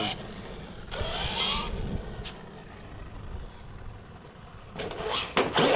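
Traxxas Sledge RC truck driving on asphalt: its brushless electric motor whines up in pitch as it accelerates about a second in, with tyre noise. A burst of louder noise comes near the end.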